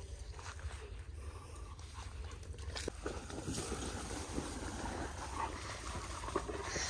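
Wheat stalks rustling and crackling against the microphone as it moves through the crop, with wind rumbling on the microphone and soft panting close by.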